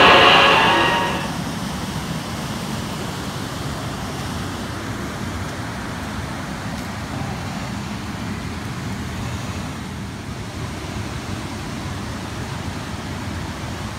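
Steady, even rushing background noise outdoors. A loud held sound with several pitched lines fades out in about the first second.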